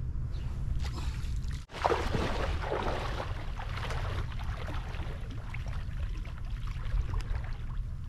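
Shallow water splashing and sloshing as a person wades out through it, starting abruptly about two seconds in and thinning out as he moves away. A low steady wind rumble on the microphone runs underneath.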